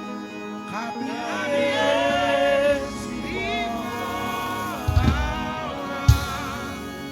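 Gospel worship singing, a voice carrying a wavering melody over sustained keyboard chords, with two low thumps about five and six seconds in.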